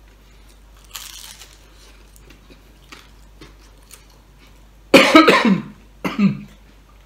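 A man coughing: one loud, hard cough about five seconds in and a shorter cough a second later, set off by sausage heavy with chili powder that he calls quite spicy.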